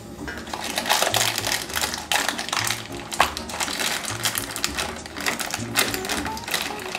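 A small cereal box's packaging being torn open by hand: a string of sharp crinkling and tearing crackles, over background music with a steady low beat.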